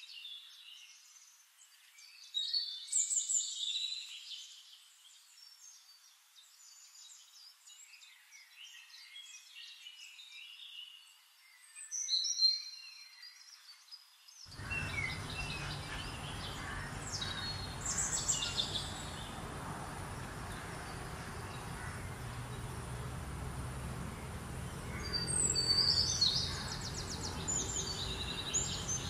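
Birds chirping and calling over outdoor ambience. About halfway through, the background changes abruptly to a fuller ambience with a low steady hum. Near the end comes a fast trilled call.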